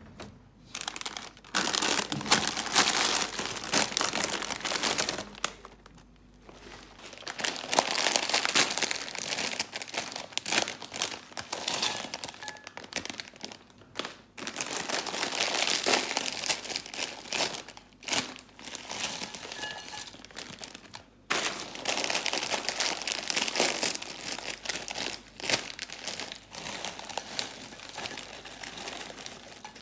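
Crinkling and rustling of something being handled, in several stretches a few seconds long with short breaks between.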